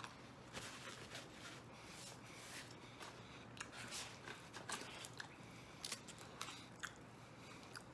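Faint chewing of a mouthful of deep dish pizza, with scattered small mouth clicks and smacks.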